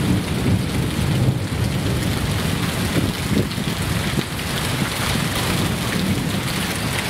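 Heavy rain pouring down on a street and parked cars: a steady, dense hiss of falling water.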